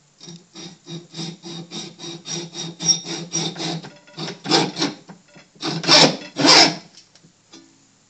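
Hacksaw cutting the angled second cut of a whistle notch into an aluminium arrow shaft. Quick, even strokes run for about four seconds, then a few longer, louder strokes follow, and the sawing stops about seven seconds in.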